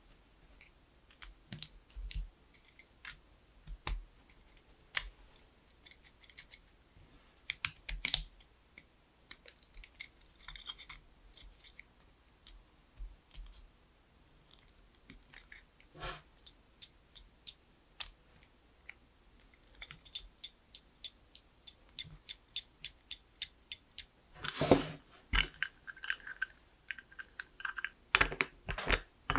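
LEGO plastic parts clicking and snapping together as they are handled and assembled by hand, in scattered separate clicks. A quicker run of clicks comes past the middle, and a brief louder clatter follows.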